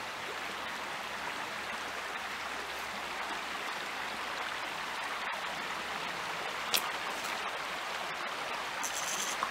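Steady rush of flowing water, with one sharp click about seven seconds in and a brief high-pitched sound near the end.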